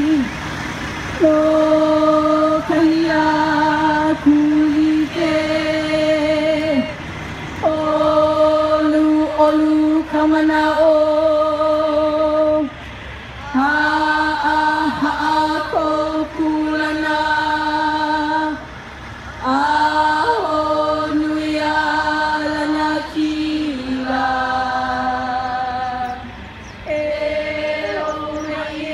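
A group of voices chanting in unison in the manner of a Hawaiian oli, holding mostly one steady note through each phrase. The phrases last about five seconds, with short pauses for breath between them.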